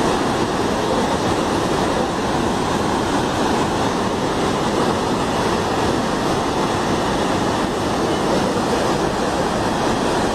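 Steady, loud rush of fast-flowing, silt-laden water.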